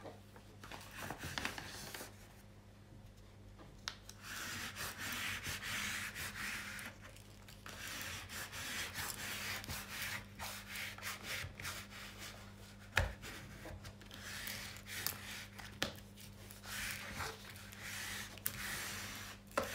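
Hands rubbing and smoothing over the surface of a diamond painting canvas in long strokes of a few seconds each, with a few sharp taps in between; she is flattening the glue, which she had just dented and rippled.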